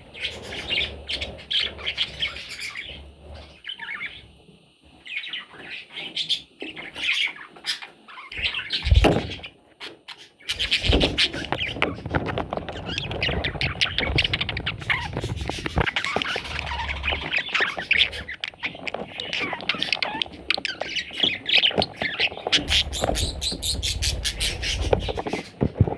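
Budgie chicks squawking and chirping in quick, high-pitched bouts that become near-continuous from about ten seconds in, with a single knock a little before that.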